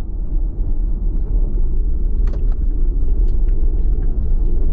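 Steady low rumble of a vehicle driving, road and engine noise heard from inside the cab, with a few faint ticks scattered through it.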